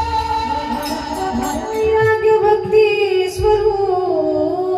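Devotional bhajan singing: a woman's voice holds a long note that slowly wavers and slides over a steady accompaniment, with a single deep pakhavaj drum stroke about three and a half seconds in.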